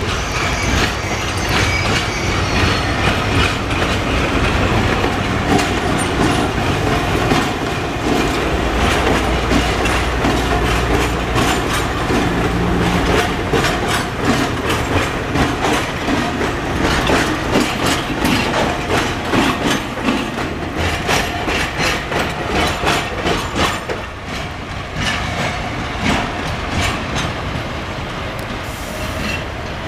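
VL10-series electric locomotives coupled together rolling past, a dense rumble with the wheels clattering over rail joints and points. The sound eases a little near the end as the units draw away.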